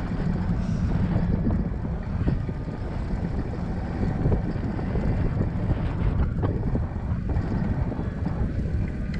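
Wind buffeting the microphone of a camera mounted on a moving road bike, a steady low rumble, with a few faint knocks along the way.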